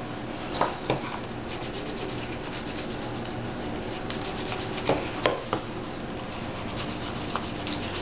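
Turned wooden edge slicker rubbed quickly back and forth along the dampened, dyed edge of a veg-tan leather sheath, burnishing it smooth: a steady rasping rub with a few sharper clicks.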